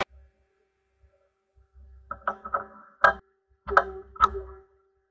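Sharp metallic clicks and knocks, about half a dozen starting around two seconds in, as a steel workpiece is handled and seated in a CNC lathe's chuck, over a faint steady machine hum.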